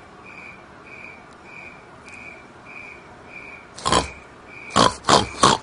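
A woman's short, loud, breathy vocal bursts: one about four seconds in, then three in quick succession near the end. Under them a faint high chirp repeats about twice a second.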